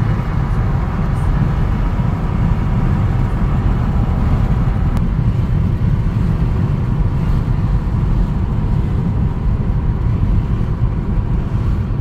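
Steady low road rumble of a moving car, with no sharp events and no change in level.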